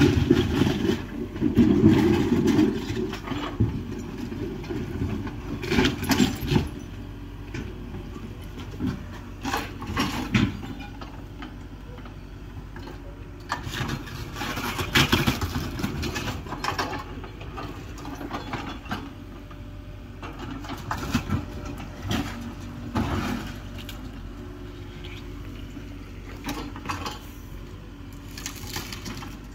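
Mini excavator's diesel engine running and working hard while it demolishes a building, with irregular crashes and clatters of breaking debris and sheet metal. The engine is loudest in the first few seconds, and the sharpest crashes come about six and fifteen seconds in.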